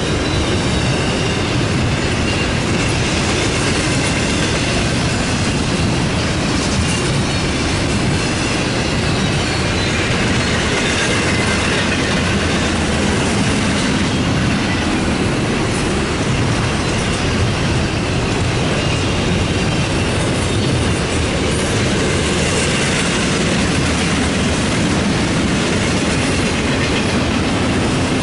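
Double-stack intermodal freight cars rolling steadily past, steel wheels running on the rails in a continuous loud roar, with faint high-pitched tones coming and going.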